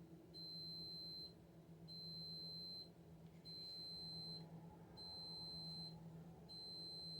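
High-pitched electronic alarm beeping, about five long beeps of roughly a second each, repeating every second and a half: the alert from a security camera system signalling that one camera is out.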